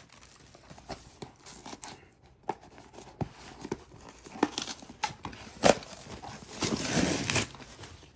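Package being opened by hand: scattered light taps and clicks of handling, a sharper click about five and a half seconds in, then a stretch of packaging rustling and tearing near the end.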